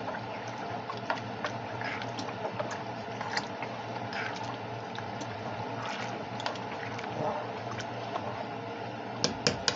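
Thin flour-and-water gravy being stirred in a saucepan: the liquid sloshes while the spoon scrapes and taps against the pan in short irregular clicks, a few sharper ones near the end, over a low steady hum.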